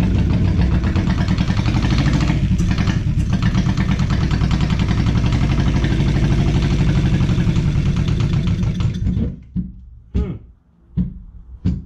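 Two-cylinder Perkins diesel engine running loudly with a rapid, even chug, then dying out about nine seconds in, followed by a few short knocks. It would not shut off readily, which the owner takes for a possible runaway.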